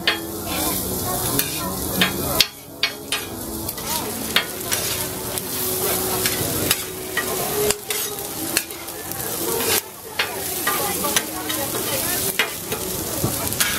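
Duck confit meat and fried duck-skin crackling sizzling on a flat-top griddle. A metal spatula chops and scrapes against the griddle plate in irregular sharp clicks and knocks.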